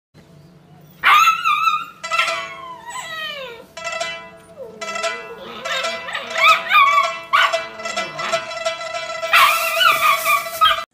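Husky puppy howling and yowling, starting about a second in: a run of wavering cries, several sliding down in pitch.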